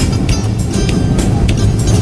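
Music with a steady beat, about four beats a second.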